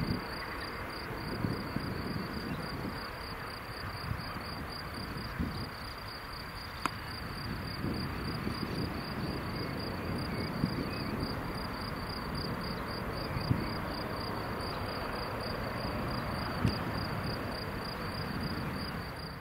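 A cricket chirping in a fast, even, high-pitched pulse, over the broad, steady noise of an Airbus A320-216's CFM56 engines at take-off power as the jet climbs away.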